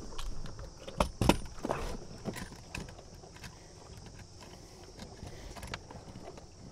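Clatter of a Thrustme Kicker electric outboard being handled and clamped onto an inflatable tender's transom. Two sharp knocks come about a second in, followed by lighter clicks and rattles that die down after about three seconds.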